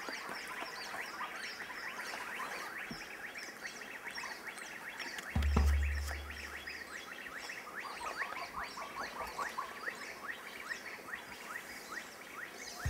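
Dense chorus of rapid, repeated chirping calls from forest wildlife, several a second, with one deep low boom about five seconds in.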